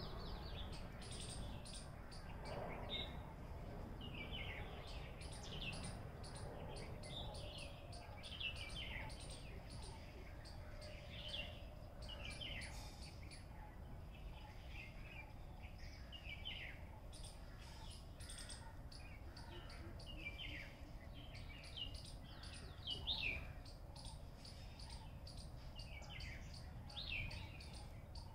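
Small birds chirping in the surrounding scrub: many short, high, falling chirps a few times a second, over a steady low rumble.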